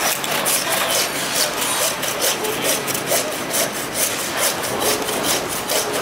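Butcher's hand bone saw cutting through a beef forequarter, the blade rasping back and forth in steady, even strokes.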